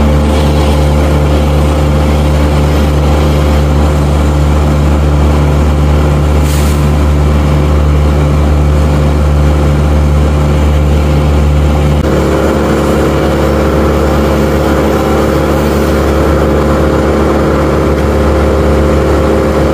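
Bandit 1590 wood chipper's engine running at a steady speed, an even drone. Its tone changes about twelve seconds in.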